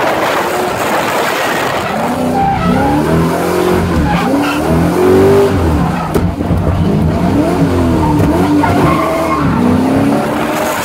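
Drift car's engine revving up and dropping back over and over, heard from inside its cabin, with tyres skidding and squealing in the slides. The revving swings start about two seconds in.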